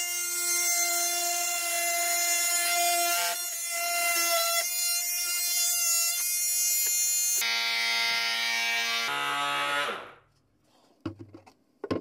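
Oscillating multi-tool running with a steady, high buzzing note as its blade plunge-cuts through the wooden side panel of a nightstand. About seven seconds in the note drops lower, then the tool winds down in falling pitch and stops, and a few sharp knocks follow near the end.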